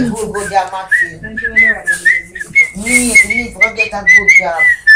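Person whistling on one high pitch that wavers up and down, starting about a second in and breaking off now and then, over children's voices.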